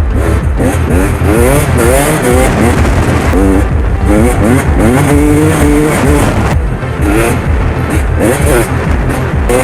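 A motor vehicle's engine revving, climbing in pitch and dropping back several times as if through gear changes, then holding steady revs near the middle. A beat-driven music track with heavy bass plays underneath.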